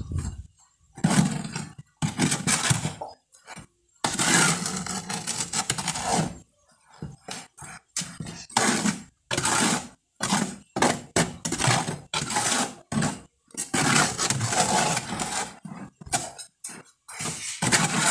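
Mason's trowel scraping and churning through a wet sand-and-cement mix in a mixing tub, in irregular strokes with short pauses between them.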